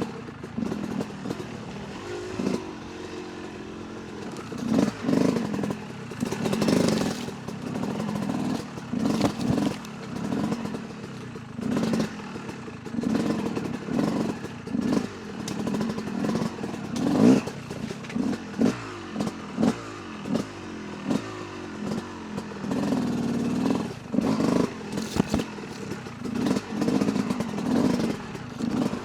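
Yamaha YZ250 two-stroke dirt bike engine revving in short bursts on and off the throttle, its pitch climbing and dropping every second or two, with knocks and rattles from the bike over rough ground.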